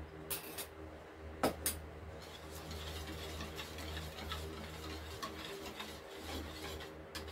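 A few sharp metal clinks as a small stainless steel bowl and strainer are handled and set down, then a wire whisk scraping and ticking quickly against a plastic mixing bowl as kutsinta batter is stirred.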